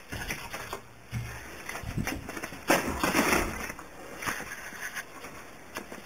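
Handling noise from a handheld camera being moved: rustling and a few light knocks, with a louder rustle about three seconds in.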